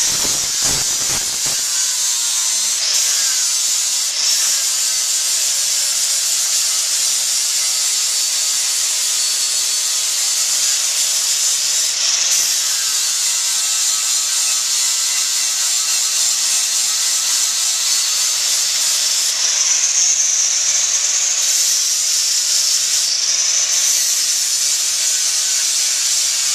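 Angle grinder with a 60-grit flap wheel sanding metal: a loud, steady hiss of the abrasive against the work, with the motor's whine drifting up and down as the pressure changes.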